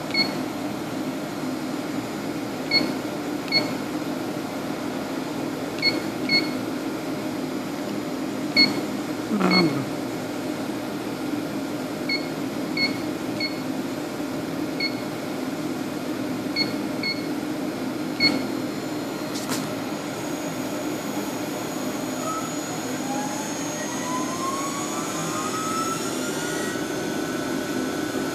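Touch-panel key beeps on a Screen PT-R8100 platesetter, a short two-pitched beep at each button press, over the machine's steady hum. About two-thirds of the way in, a motor whine rises in pitch and levels off as the platesetter starts preparing a plate.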